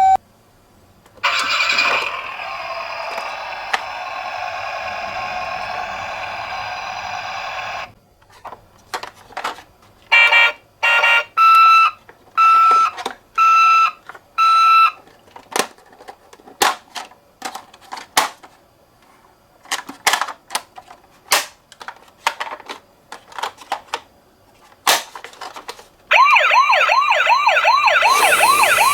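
Toy ambulance minicars on a slope: a steady rushing roll for several seconds, then a run of sharp plastic clicks and knocks with short repeated beeps. Near the end an electronic toy siren starts, warbling quickly up and down.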